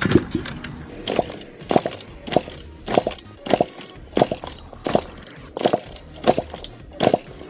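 Background music with a steady beat of about one and a half hits a second.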